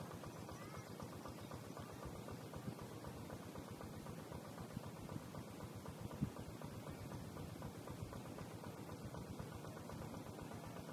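Faint, steady background hiss with a few soft clicks, the clearest about six seconds in.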